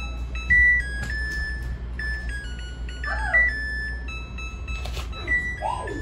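Samsung top-loading washing machine playing its electronic end-of-cycle melody: a tune of clear beeped notes stepping up and down in pitch, which signals that the wash has finished.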